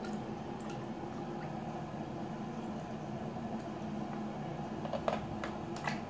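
Water lapping and light splashing as a plastic scoop is moved about in a plastic basin of water, with a few short sharp taps near the end, over a steady background hum.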